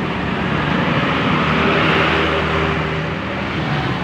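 A road vehicle passing close by: a low engine drone under rushing road noise that swells to a peak about halfway through and then fades.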